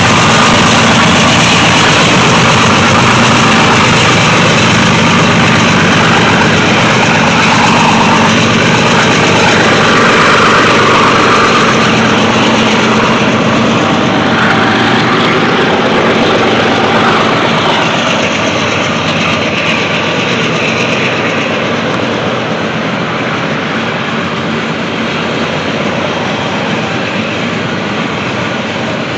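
Norfolk Southern diesel-electric locomotives working slowly past under power at the head of a loaded coal train, followed by the steady rolling of heavy loaded coal hoppers on the rails. The engine sound eases off gradually in the second half as the locomotives draw away.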